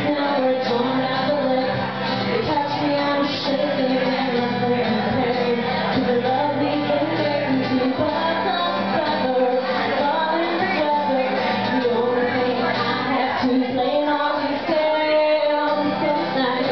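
A woman singing a song live while playing an acoustic guitar.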